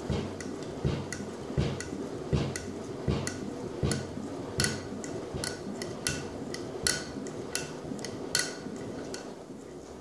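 Front-loading washing machine drum tumbling a load of sandals in water, with a steady slosh and sharp knocks about four every three seconds as the sandals drop against the drum. The knocks stop and the sound dies away near the end as the drum slows.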